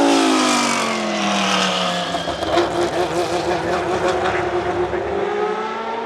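Historic Formula One race car flying past at speed: its engine note drops sharply in pitch as it passes, then falls away over the next couple of seconds. A run of sharp cracks follows, and another car's engine is heard climbing in pitch near the end.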